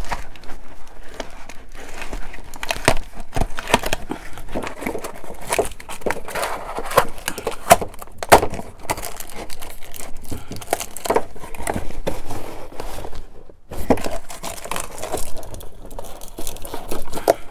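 Cardboard packaging being handled and worked: rustling and crinkling with many sharp clicks and knocks, broken by one short pause about three-quarters of the way through.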